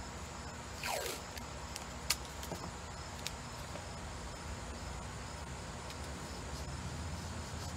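Painter's tape ripped from its roll, a brief noisy tear that falls in pitch about a second in, followed by a couple of sharp clicks. Behind it run steady cricket chirring and a low hum.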